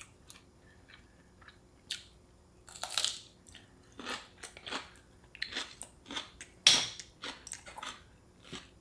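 Close-up eating sounds: a person chewing and biting food, with short wet clicks and a few louder crunches, the loudest about three seconds in and near seven seconds.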